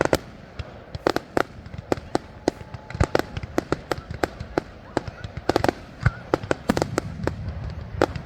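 Fireworks display: a rapid, uneven string of sharp cracks and pops, several a second, over a steady low rumble of booms.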